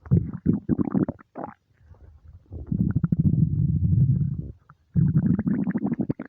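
Human stomach rumbling from hunger. A run of bubbly gurgles comes first, then a long low growl about three seconds in, and another growl with gurgles near the end.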